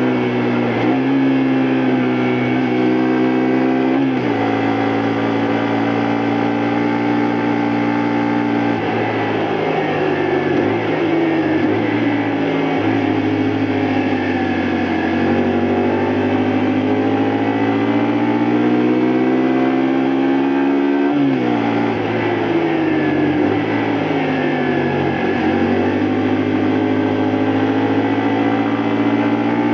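2002 Honda Varadero 125's small V-twin engine running on the road, its pitch holding steady, then rising and falling with the throttle. About two-thirds through it drops sharply and picks up again, as at a gear change or a throttle lift.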